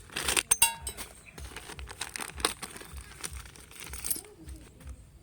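A metal motorcycle clutch cover being handled and checked over: a quick run of metallic clinks and clicks about half a second in, one ringing briefly, then scattered lighter taps and knocks.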